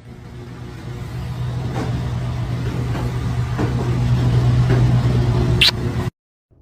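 A steady low motor hum that grows louder, with a short rising high squeak near the end.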